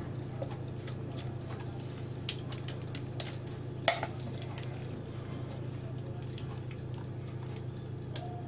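Metal spatula scraping and clicking against a glass bowl as thick cake batter is scraped out, with one sharp click about four seconds in, over a steady low hum.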